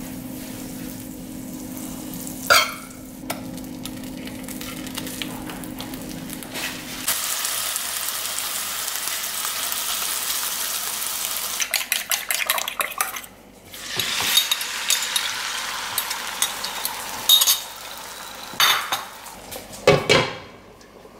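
Butter melting in a nonstick frying pan as a metal knife pushes it around, then slices of Canadian bacon sizzling loudly in the butter from about seven seconds in, with the knife scraping and tapping the pan. After a brief break the frying hiss returns, with a few sharp clinks of metal on the pan near the end.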